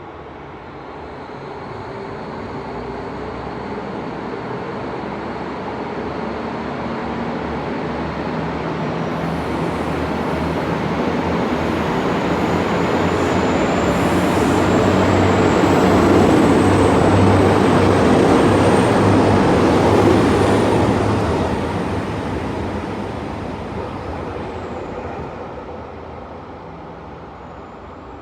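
KiHa 201 series diesel multiple unit running past: the diesel engine and rail noise grow louder, peak a little past the middle, then fade away. A thin high whine rises slowly in pitch over the engine sound.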